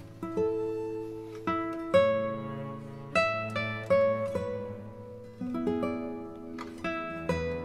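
Background music: an acoustic guitar playing a slow melody of single plucked notes, each ringing out and fading before the next.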